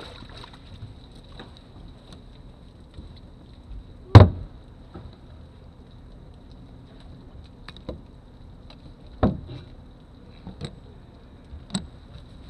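Knocks and thumps on a bass boat as the anglers move about it. The loudest comes about four seconds in, another heavy one about nine seconds in, and a few lighter knocks follow.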